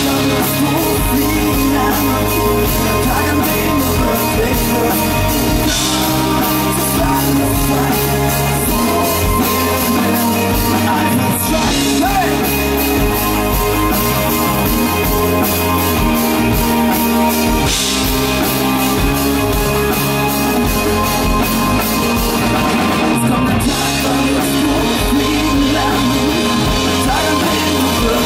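Live rock band playing loud: drum kit, electric guitars and bass, with a male singer's voice over it. A cymbal-like crash comes roughly every six seconds.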